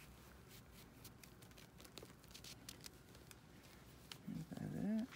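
Faint rustling and light handling clicks as a synthetic doll wig is worked onto a doll's head and its plastic wrap is touched. Near the end comes a short, louder vocal sound with a wavering pitch.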